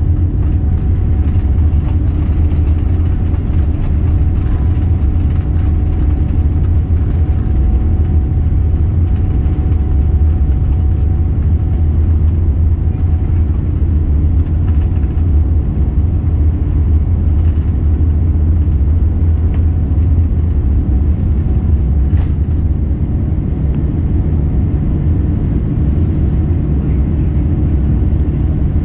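Boeing 787's Rolls-Royce Trent 1000 turbofans at takeoff thrust with the runway rumble, heard inside the cabin during the takeoff roll and lift-off: a loud, steady deep rumble with a thin steady whine that fades over the first third.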